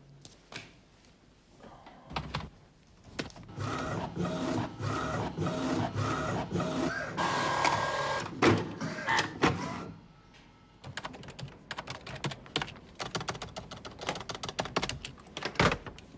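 HP Deskjet inkjet printer running for about six seconds as it feeds and prints a page, its mechanism whirring with several steady tones. It stops, and about a second later rapid computer-keyboard typing clicks take over.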